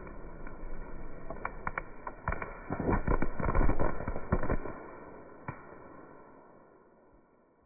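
Firework shell burst inside a watermelon: the dying rumble of the blast, then a dense crackling of burning stars with many sharp pops and cracks, busiest around three to four seconds in, fading away near the end.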